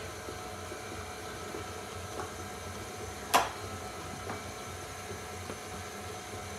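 Electric stand mixer running steadily, beating cake batter. A single sharp knock sounds about halfway through.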